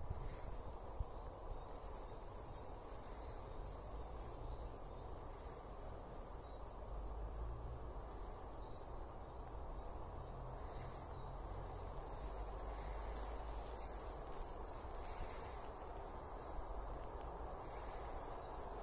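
Outdoor ambience: a steady low rumble and hiss, with faint short bird chirps, often in pairs, every second or two.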